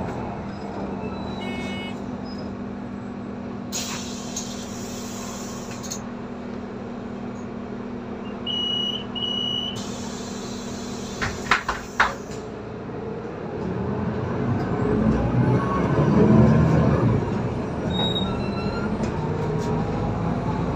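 Inside a Solaris Urbino 18 III articulated diesel bus: the engine runs low and steady, with two hisses of air, two short electronic beeps and a few clicks in the first half. About two-thirds of the way through, the engine pulls harder and louder as the bus accelerates, then eases back.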